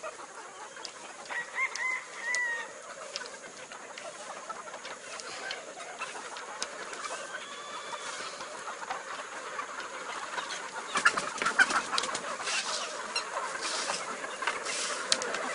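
Chickens clucking and calling, with short pitched calls early on that give way to a louder, busier stretch of clucking and sharp clicks in the last few seconds.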